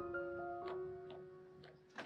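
Background music: a gentle melody of held keyboard-like notes with light ticking percussion about twice a second.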